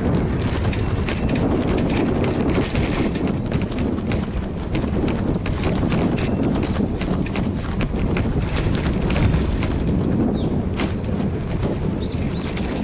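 Bicycle rattling over an uneven road surface, heard through a camera fixed to the bike: irregular clicks and knocks over a steady low rumble of tyres and wind.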